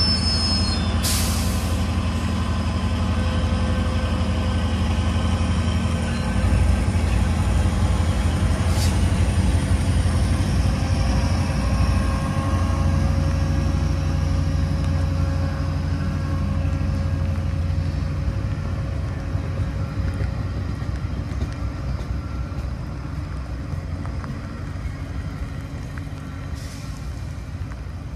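Diesel train running past with a steady low engine drone and thin steady tones above it, fading over the last several seconds. Short air hisses come about a second in, again around nine seconds and near the end.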